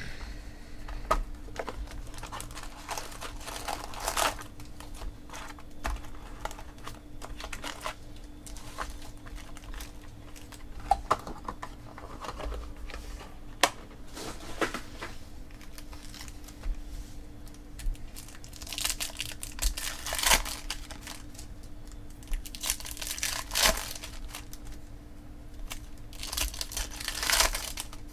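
Foil wrappers of baseball card packs crinkling and rustling as the packs are handled and torn open by hand. The noise comes in irregular bursts, with louder clusters of crinkling and tearing in the second half.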